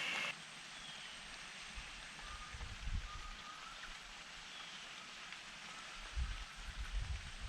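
Quiet wet-season river ambience: a soft, steady hiss of rain and water, with a few faint short bird whistles. Low rumbles come and go about two seconds in and again near the end. A louder hiss cuts off suddenly just after the start.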